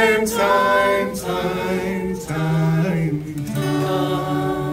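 Sing-along with acoustic guitar: a man's voice and a group of voices holding out the last drawn-out word of the song's final line, the held notes changing about two seconds in.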